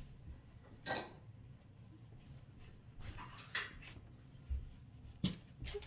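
Handling noise: a few short, light knocks and rustles as objects are picked up and moved, over a low room hum.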